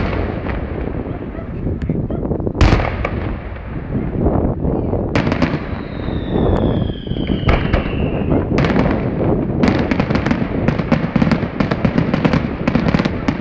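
Aerial firework shells bursting, sharp bangs over a continuous rumble, the bangs coming thicker and faster in the second half. A whistle falling in pitch runs for about two seconds near the middle.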